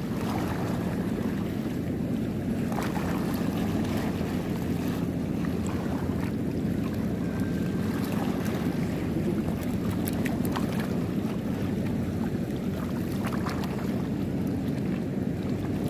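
A steady low hum, like a motor running, under wind on the microphone and sea water lapping, with a few faint clicks.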